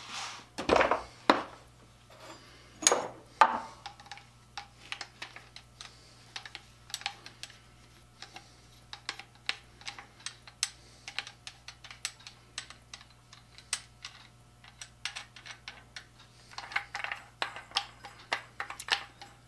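Light metal clicks and taps of a 2.5-inch hole saw being unscrewed and taken off its pin-lock arbor by hand, with a few louder knocks in the first few seconds.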